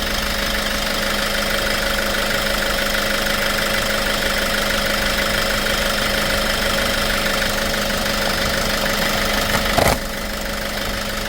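Hyundai Porter II's diesel engine idling steadily with the air-conditioning compressor engaged, while the AC refrigerant charge is being checked. A short sharp knock comes near the end, after which the sound is slightly quieter.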